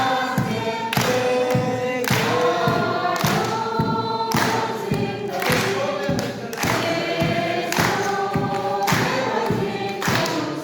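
A choir singing a song over music with a regular beat.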